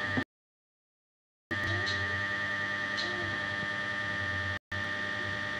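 A steady hum with a constant high whine over it, cut to dead silence for about a second near the start and again very briefly later on. A few faint, short gliding sounds rise and fall over the hum.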